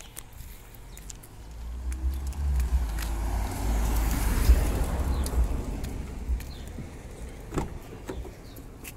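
Low rumble and hiss of wind and handling noise on a phone's microphone as it is carried around the car, loudest in the middle, then a sharp click about three-quarters of the way through as the car's driver door is unlatched and opened.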